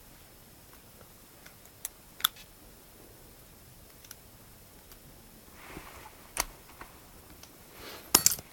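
Sparse sharp metallic clicks and light handling of a 60mm Kryptonite padlock and lock-picking tools after the lock has been picked open, with a brief rustle about six seconds in and a quick run of clicks near the end.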